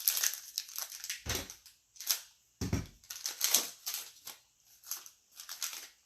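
Trading card pack foil and cards being handled: a run of short crinkling, crackling rustles, with two dull thumps about one and a half and three seconds in.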